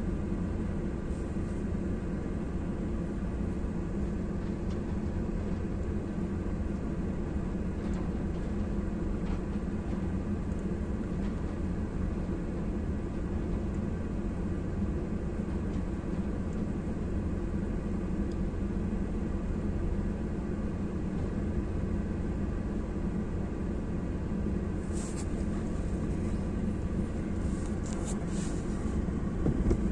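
An engine running steadily, a deep, unchanging drone, with a few sharp knocks near the end.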